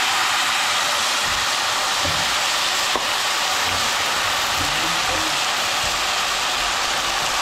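Seasoned chicken pieces sizzling loudly and steadily in hot oil and browned, caramelised sugar in a pot: the browning step of Caribbean stew chicken. There is a light tap about three seconds in.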